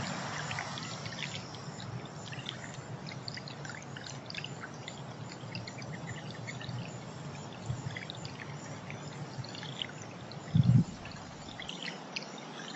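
Running water pouring steadily, with many small birds chirping briefly over it. A single low thump comes about ten and a half seconds in.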